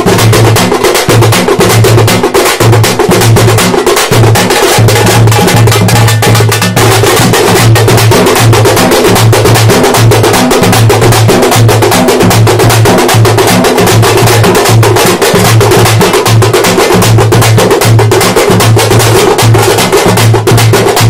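A troupe of thappu (parai) frame drums beaten together with sticks, playing a loud, fast, dense rhythm without a break.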